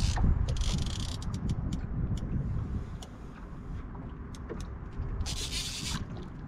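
Wind rumbling on the microphone over open water during a fight with a big catfish from a small aluminium boat, stronger for the first couple of seconds. Two short bursts of hiss, near the start and about five seconds in, and scattered light clicks.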